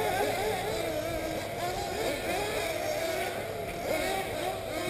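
Several 1/8-scale nitro RC buggies racing, their small two-stroke glow engines whining high and revving up and down constantly, many pitches overlapping as the cars accelerate and brake around the track.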